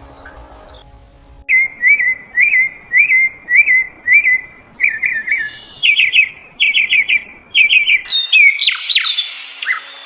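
Bird chirping: a run of short chirps repeated about twice a second, then quicker clusters of chirps. From about eight seconds in come sharper calls that fall in pitch.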